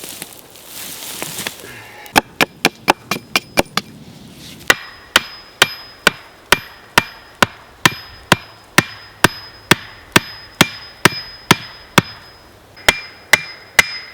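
Axe striking wood: a quick run of lighter knocks about two seconds in, then steady hard blows about twice a second, each with a short ring. The blows are typical of driving upright wooden stakes into the ground for a stick fence.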